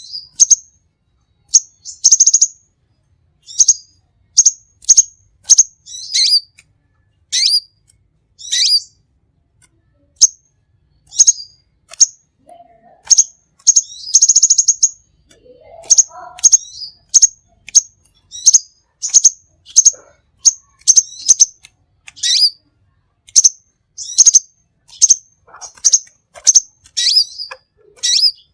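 Songbird calls from a masteran song-tutoring recording: short, sharp, high chirps repeating about one to two a second, with a couple of brief rattling trills and a few lower notes around the middle.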